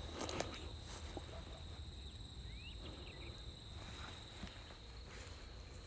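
A steady, high-pitched insect trill carries on throughout. Brush rustles and footsteps sound just after the start, and there are a couple of faint short chirps about halfway through.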